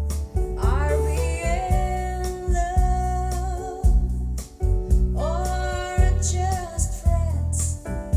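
A song with a singer over deep, repeating bass notes and a drum beat, played back through a Technics SE-9200 power amplifier with its damping factor set to 1 for a warmer sound.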